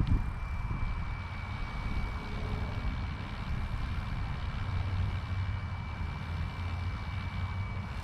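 FlyWing FW450 GPS RC helicopter hovering, its electric motor and rotors giving a steady high whine over continuous rotor noise. A brief click right at the start.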